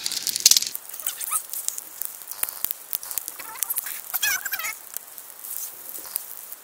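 Small campfire of resinous fatwood and dry bark crackling, with frequent sharp pops, the loudest about half a second in. A few short, wavering high-pitched sounds come in about a second and a half in and again around four seconds.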